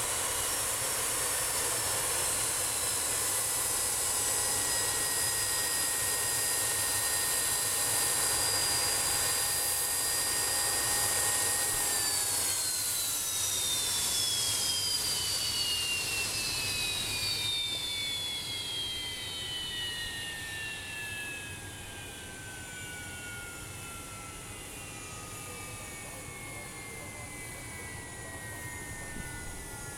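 Fokker F28's rear-mounted Rolls-Royce Spey turbofan engines running at idle with a steady high whine over a rushing hiss. About twelve seconds in, the whine starts falling steadily in pitch and the sound grows quieter: the engines spooling down as they are shut down on the parked aircraft.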